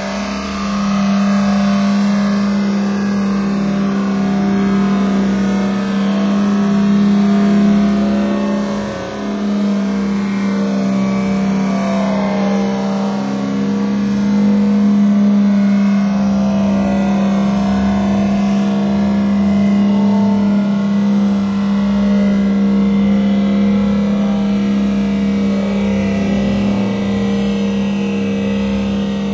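Toyota Land Cruiser 80 engine held at high, steady revs as it pushes through soft peat with its wheels spinning and throwing mud. In this bog only high revs keep it moving. About nine seconds in the revs dip briefly, then pick straight back up.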